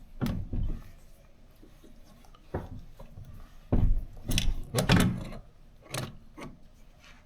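Irregular clunks and knocks of a wrench and metal parts as a threaded pipe fitting, sealed with pipe dope, is tightened into a compressor pressure switch. There are about seven knocks, the loudest grouped between about four and five seconds in.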